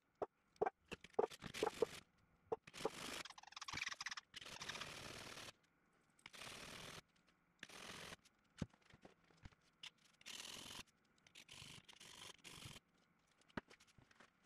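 Faint scraping of a steel plane iron rubbed flat across a sharpening plate, in separate strokes of varying length, the longest lasting about three seconds. Light clicks and taps of the blade and tools on the bench come in the first two seconds.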